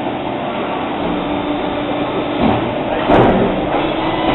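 Steady hum of an Amada robotic press brake cell running, with a short louder noise about three seconds in.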